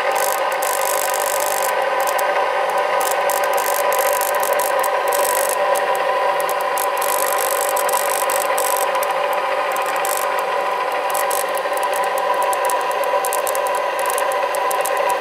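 A 24-volt rotary inverter (motor-generator) from 1945 running steadily: a hum of several held tones with a rough, crackling rasp over it. The rasp is brush noise, which the owner puts down to brushes that need cleaning.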